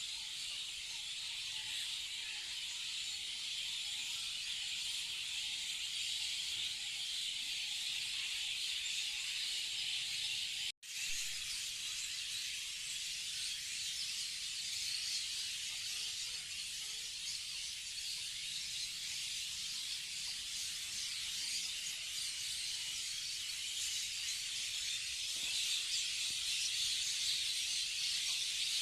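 A dense chorus of many small birds chirping in the trees, a steady high-pitched chatter that breaks off for a split second about eleven seconds in.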